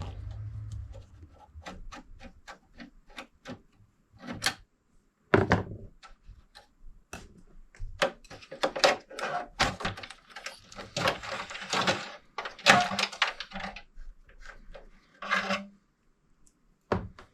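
Parts of a desktop PC case being handled and worked loose: a quick run of light clicks, then knocks, taps and a stretch of plastic and metal scraping and rubbing.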